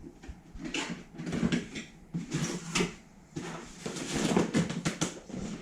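Cardboard packaging box being opened and handled, with irregular rustling and sharp knocks.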